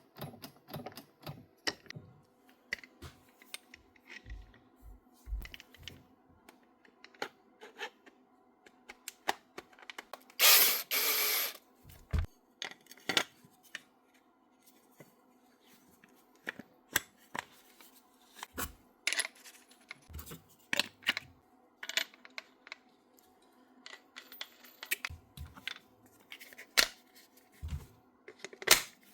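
Scattered clicks, taps and ratchet-like clicking from a cordless power tool's parts being handled and worked on by hand during a repair, with a brief louder rush of noise about ten seconds in.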